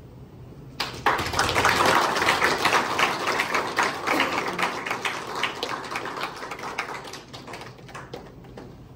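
Audience applauding, starting suddenly about a second in and gradually dying away.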